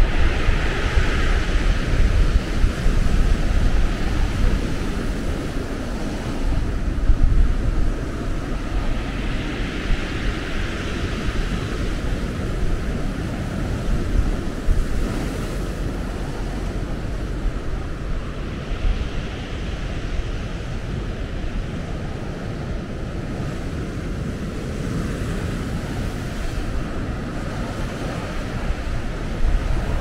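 Sea waves breaking on a beach, surging three times about ten seconds apart, over steady surf, with strong wind buffeting the microphone in a deep rumble.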